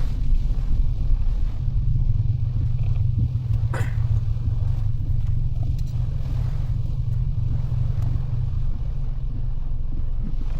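Mitsubishi Delica driving, heard inside the cabin: a steady low rumble of engine and road noise.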